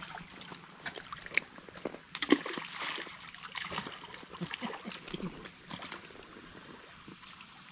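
Shallow creek water sloshing and splashing as someone wades, with scattered clicks and knocks of stones, over a steady high hiss.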